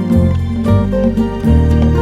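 Gentle instrumental music: plucked acoustic guitar notes over sustained low bass notes.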